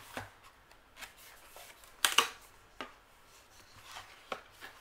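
Paper handling as a Happy Planner mini sticker book is opened and its cover and sticker sheets are turned: a series of short, crisp paper rustles and taps, the loudest pair about two seconds in.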